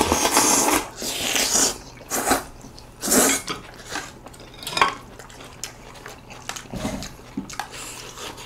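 Close-up eating sounds: noodles slurped in short irregular bursts, with chopsticks and spoons clinking and scraping on plates.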